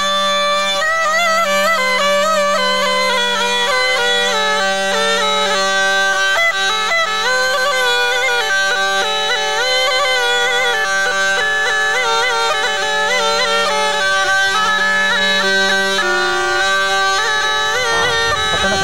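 Snake charmer's pungi (been), a gourd reed pipe, playing a wavering, ornamented melody over its steady drone, with no break.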